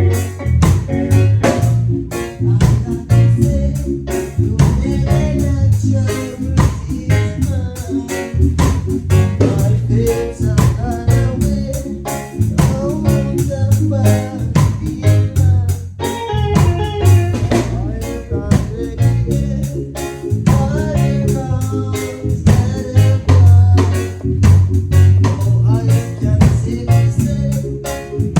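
A band playing live: drum kit and guitar over a steady beat.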